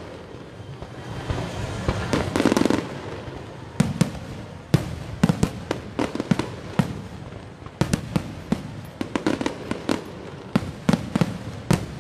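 Aerial fireworks bursting: a long series of sharp bangs at irregular spacing, with a dense stretch of crackling about two seconds in.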